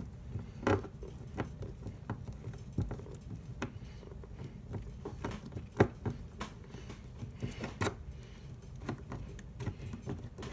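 A Phillips screwdriver turning a terminal screw down in a Neutrik powerCON connector: faint, irregular small clicks and scrapes as the tip works in the screw head and the plastic housing shifts in the hand.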